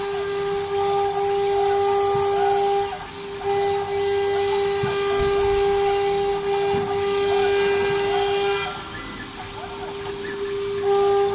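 CNC router's 2.2 kW water-cooled spindle running at high speed with a steady high whine, while hissy cutting noise rises and falls as the bit works the material. The cutting noise drops away for about two seconds near the end while the whine goes on.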